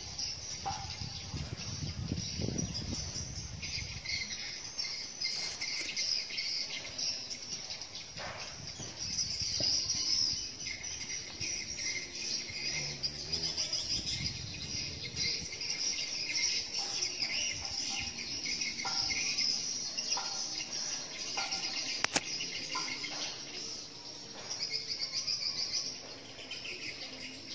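A steady, high insect chorus of chirring that pulses slightly and runs unbroken, with a few short bird chirps.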